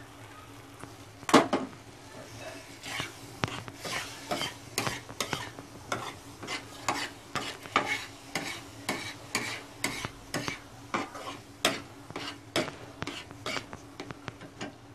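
A flat metal spatula scraping and knocking on a flat griddle (tawa) as a thick potato-and-pea ragda is stirred and spread, about two strokes a second, over a soft sizzle; one loud knock about a second and a half in.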